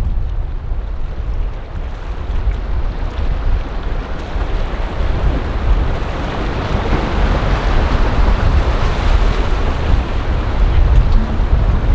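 Wind buffeting the microphone with a heavy rumble, over the rush of surf and boat wash, which swells in the second half.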